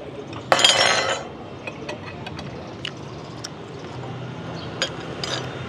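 Light clicks and clinks of tableware at a hotpot meal, with a short loud rushing noise about half a second in and a low steady hum from about four seconds in.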